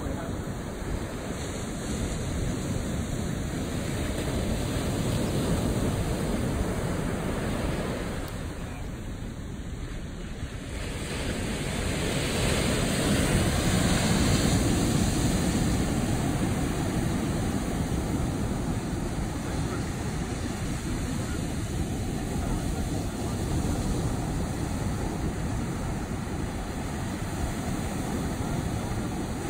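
Ocean surf breaking and washing up a sandy beach, a continuous rushing wash that ebbs and swells, loudest as a bigger wave breaks about halfway through.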